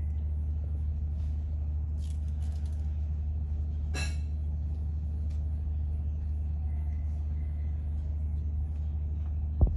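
Steady low rumbling hum, with a few faint clicks, a short sharper sound about four seconds in and a loud knock just before the end.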